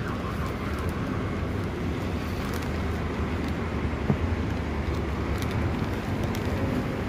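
Steady road traffic noise, with a few faint crinkles of a plastic bag being handled.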